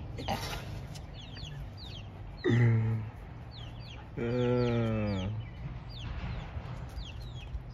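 Baby chicks peeping steadily, a quick series of short falling peeps. Two low drawn-out hums break in, a short one about two and a half seconds in and a longer one of about a second just after four seconds.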